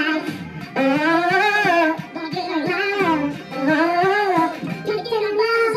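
Karaoke singing: a voice sung into a microphone and played through the karaoke machine's speaker over a backing track, in phrases of about a second with long, wavering held notes.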